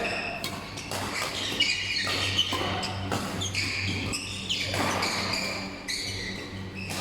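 Basketball game in play: sneakers squeaking sharply on the court and the ball bouncing and thudding, over a steady low hum.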